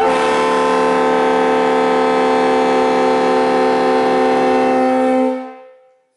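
Three-chime mutt train horn with 25, 37 and 44 bells blowing one long, steady chord for about five seconds, then dying away; a second blast starts right at the end.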